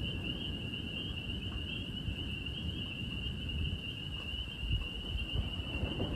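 A steady, high-pitched night chorus of calling animals, one unbroken shrill band, over a low, uneven rumble in the background.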